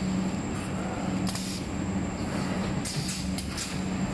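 Automatic rigid box assembling machine running: a steady machine hum, broken by short air hisses from its pneumatic actuators about a second in and again near three seconds.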